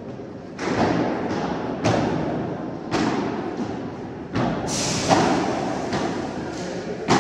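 Padel ball being struck by rackets and bouncing on the court during a rally: a string of sharp hits about a second apart, each echoing in a large indoor hall.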